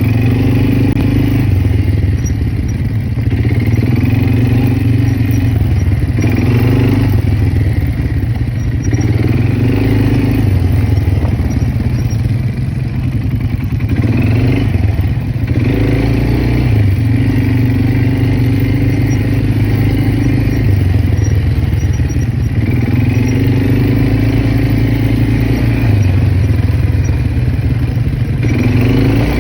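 Quad bike engine running under way, its pitch repeatedly rising as it accelerates and easing off again every few seconds, over a steady low rumble.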